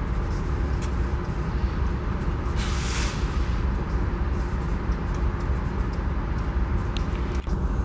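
BNSF GE diesel-electric locomotives running with a steady low rumble and hum. A short hiss of air comes about two and a half seconds in.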